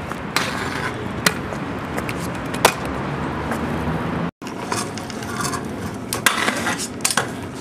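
Freestyle kick scooter wheels rolling over stone paving, with sharp clacks and scrapes of the deck and wheels striking stone ledges and steps. The sound breaks off briefly a little over four seconds in, then more clacks and scrapes follow.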